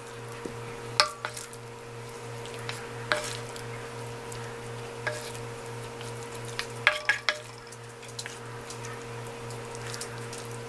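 Wooden spoons scooping sticky stir-fried chicken feet from a nonstick frying pan onto a plate, with soft scraping and several sharp taps of wood against the pan and plate, a quick cluster of them about seven seconds in. A steady low hum runs underneath.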